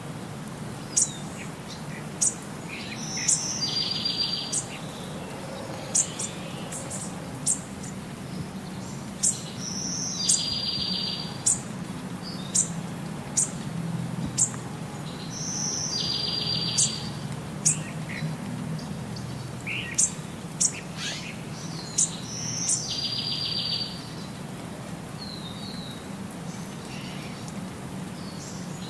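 Birdsong: short, sharp high chirps about once a second, and a longer trilled call that repeats about every six to seven seconds, a looped birdsong track, over a steady low hum.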